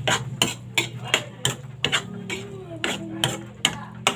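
A metal spatula knocking and scraping against a metal wok while stir-frying corned beef, about three sharp knocks a second, over a steady low hum.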